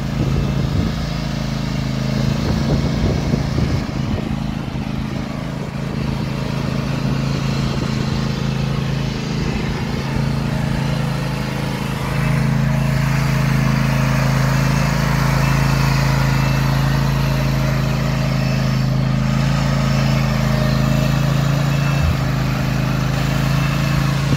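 Snapper zero-turn mower's engine running steadily as the converted sprayer is driven, getting louder about halfway through.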